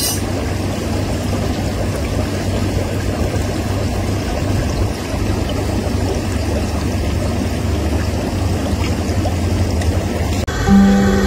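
Steady rush of running water with a low, even hum underneath. Guitar music comes in near the end.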